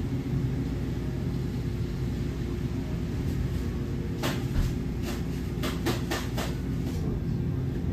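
Convenience-store background: a steady low rumble of the store's ambience. A little past the middle comes a quick run of about six or seven light knocks or clicks.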